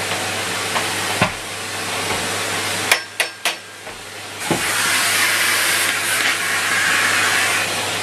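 Numatic Henry HVT160 (Henry Turbo) cylinder vacuum cleaner running, a steady motor hum under the rush of air through the hose. About three seconds in there are a few sharp knocks and the airflow briefly drops, then the air rush comes back louder and brighter.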